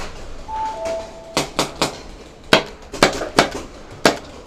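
Paintball markers firing in quick bursts: about eight sharp pops, starting about a second and a half in. Before them comes a short two-note beep, stepping down in pitch.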